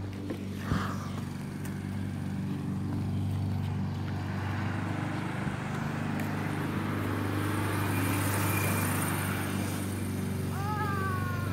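A steady low motor hum, with a rushing noise that swells and fades in the middle.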